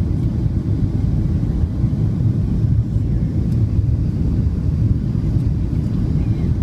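Steady low rumble of engine and airflow noise inside the cabin of a Boeing 737-700 during its descent, heard from a window seat over the wing.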